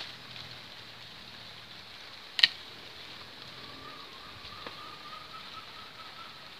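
A single sharp snip of hand pruning shears cutting a bonsai branch, about two and a half seconds in, over a faint steady background; a faint thin steady tone comes in about halfway.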